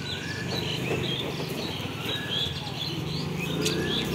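Birds chirping in short repeated calls over a low, steady hum.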